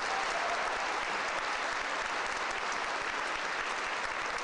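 Audience applauding steadily after a barbershop a cappella song.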